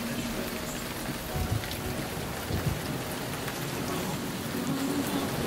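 Heavy rain on a car's roof and windshield, heard from inside the moving car, with the hiss of tyres through water on the road. Two short low thumps break in about a second and a half and two and a half seconds in.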